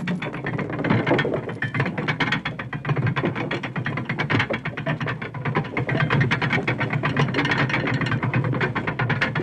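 A gear or ratchet mechanism turning, giving a continuous run of rapid clicks over a low steady hum.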